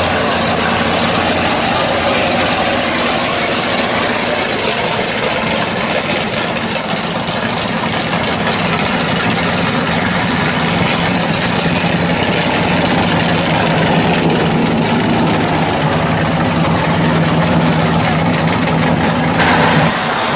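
Classic drag car's engine idling, a loud steady rumble with a few even low tones under it. The sound changes abruptly just before the end.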